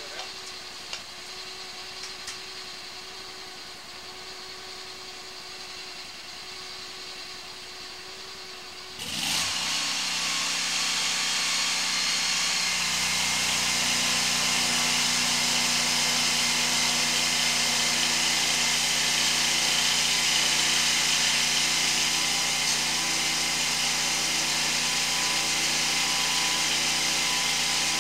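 Hydro-jetter engine and high-pressure pump running steadily. About nine seconds in it jumps sharply louder with a strong hiss, and a deeper engine note joins a few seconds later and holds steady.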